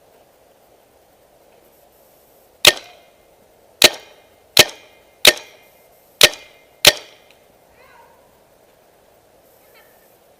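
Kingman Spyder paintball marker firing six sharp shots, unevenly spaced over about four seconds, each with a short ringing tail.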